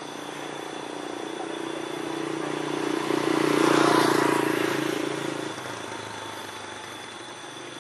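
A car driving past on the road, its engine and tyre noise swelling to a peak about four seconds in, then fading away.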